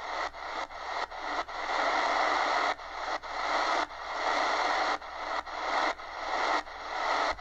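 Shortwave static and hiss from the Eton Grundig Executive Satellit's speaker as it is tuned slowly up through the 80-metre amateur band with no station found. The hiss is broken by many short gaps.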